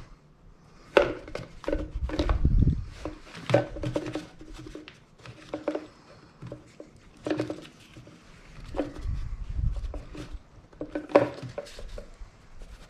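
Irregular clicks, taps and knocks of a Homelite Super 2 chainsaw's plastic housing and parts being handled, with a few low thumps.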